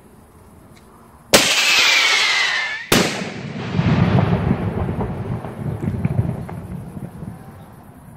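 Colpo 45 scream shell, a 45 mm firework shell: a sudden launch with a screaming whistle that falls in pitch for about a second and a half, then one loud bang, followed by a rumbling echo that fades over several seconds.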